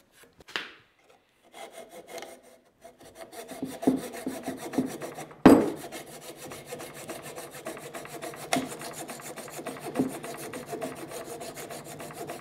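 Coping saw cutting into the end of a wooden frame piece held in a vise, a steady run of quick rasping strokes, clearing waste from a bridle joint slot. A sharp knock about five and a half seconds in is the loudest sound.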